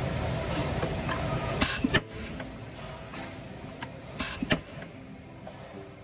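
Factory press machinery running, with a short hiss that ends in a sharp clunk about two seconds in; after that the noise drops to a quieter hum. A second short hiss comes near the middle.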